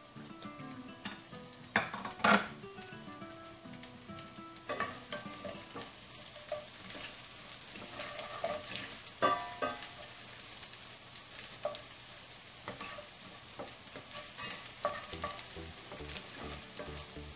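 Chopped garlic sizzling in hot oil with nigella and carom seeds in a nonstick frying pan, a steady frying hiss. A few sharp knocks of stirring break through it, the loudest about two seconds in.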